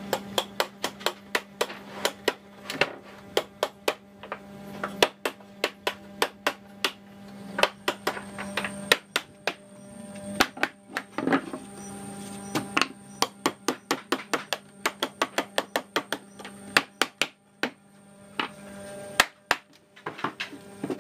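Hammer tapping repeatedly on the wooden frame and raised panels of a door being assembled, quick sharp knocks about two to three a second with a few short pauses. Background music plays underneath.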